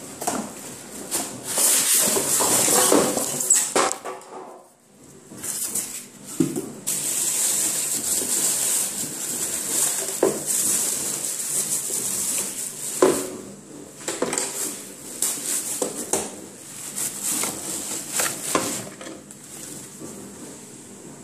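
Plastic wrapping crinkling and rustling as it is pulled off a sandwich maker, with scattered knocks from the appliance being handled.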